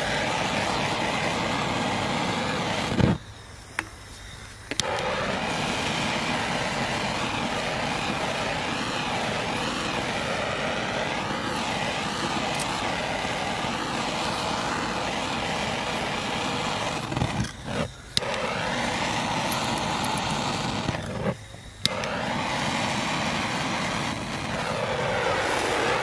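Hand-held propane torch burning with a steady roar as it heats the end of a black plastic pipe to soften it. The roar cuts out for a second or so about three seconds in, and briefly twice more later on.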